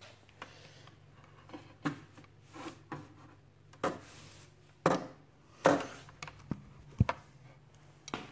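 Handling noise of a smartphone being moved about: about seven irregular knocks and rubs on the phone and its microphone, loudest a little past the middle, over a faint steady low hum.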